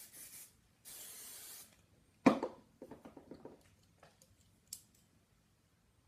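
Aerosol hairspray can sprayed in one steady hiss lasting about a second. About two seconds in comes a sharp knock, the loudest sound, followed by a few soft handling noises.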